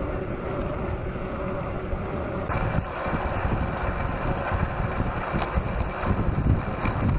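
Wind buffeting the microphone of a handlebar-mounted camera on a moving mountain bike, a steady rumbling rush. The noise changes character about two and a half seconds in.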